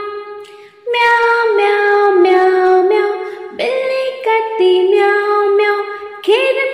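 Bright children's-song music: a melody stepping from note to note between sung verses, with a rising swoop about three and a half seconds in and again near the end.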